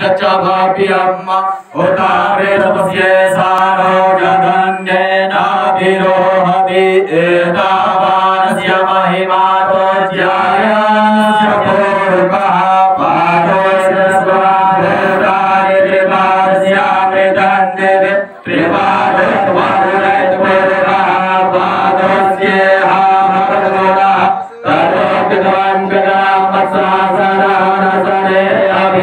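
Male Vedic pandits chanting Sanskrit mantras of a Narayan Bali shraddh rite into microphones: a continuous, sustained recitation on long held notes, broken only by a few brief breath pauses.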